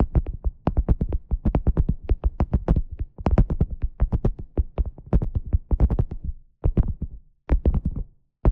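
Beeswax food wrap being crinkled and handled close to the microphone: rapid, dense crackling in clusters, with short pauses near the end.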